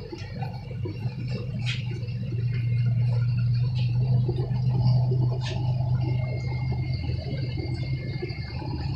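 Steady low electric hum of aquarium air pumps and filters, with water bubbling from the tanks' aeration; the hum grows louder a second or two in, and there are a couple of faint ticks.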